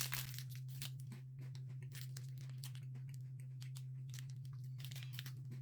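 Plastic snack wrapper being crinkled and torn open, with irregular crackles that are densest near the start, over a steady low hum.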